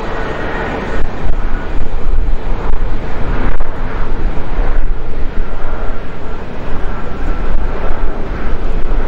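Boeing 737-500's CFM56 jet engines rumbling as the airliner rolls down the runway after landing. Gusts of wind buffet the microphone, making the level rise and fall unevenly.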